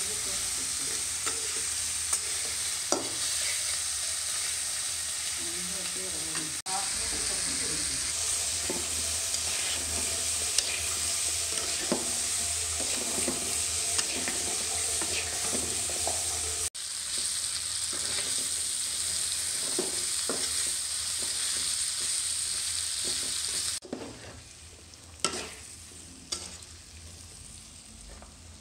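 Oil sizzling hard in an iron karahi as shrimp and then diced potatoes fry, with a spatula scraping and tapping against the pan. About 24 s in the sizzle falls away, leaving a few sharp knocks.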